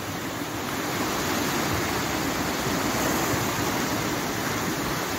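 Small sea waves breaking and washing up a sandy shore: a steady rush of surf.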